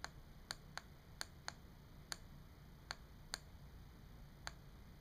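A handheld Spyder 3 Arctic blue laser pointer's switch being clicked as it is powered on: about nine light, sharp clicks at uneven intervals, a little over a second apart at most.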